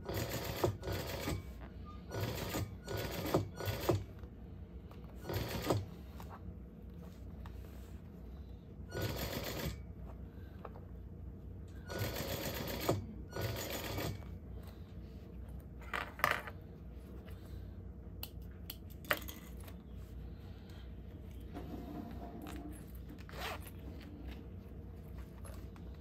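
Juki industrial sewing machine stitching a purse's gusset seam in short runs of about half a second to two seconds, stopping and starting as the work is turned, over a steady low hum. A few sharp clicks fall in the pauses.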